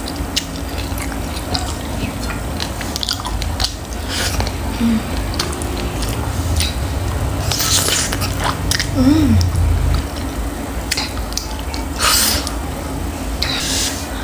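Close-miked eating of spicy chicken feet: biting, chewing and wet mouth noises, with a few louder noisy bursts.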